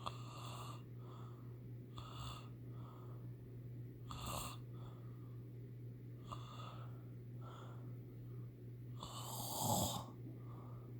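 Snoring: short, rough breaths every second or two, the longest and loudest snore near the end, over a steady low hum.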